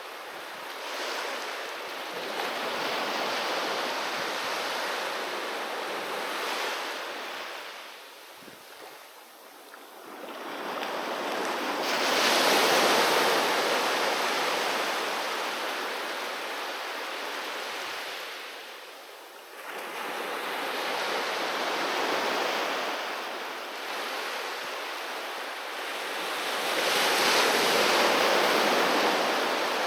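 Ocean waves breaking on a beach and washing up the shore. The surf swells and fades, with the loudest breakers about twelve seconds in and again near the end.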